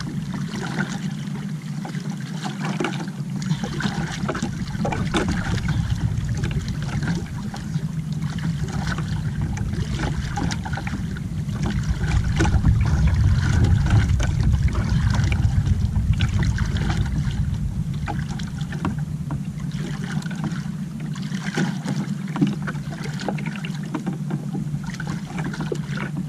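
Wind buffeting the boat-mounted microphone and water lapping against an outrigger canoe's hull, a steady low rushing with small splashes, swelling for a few seconds midway.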